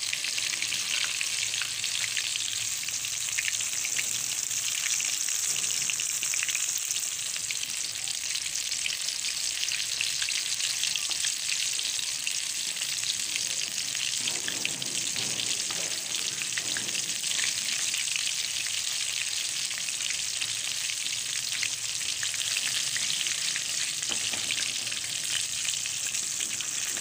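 Hot oil sizzling steadily in a karahi, with a dense fine crackle, as flour-coated chicken pieces deep-fry.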